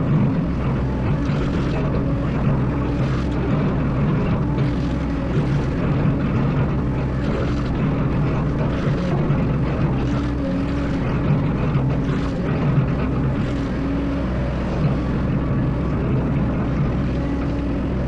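Excavator's diesel engine running steadily under work, with brief knocks now and then.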